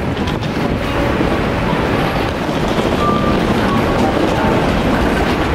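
Steady traffic noise with a heavy low rumble from vehicles along an airport terminal's departure curb.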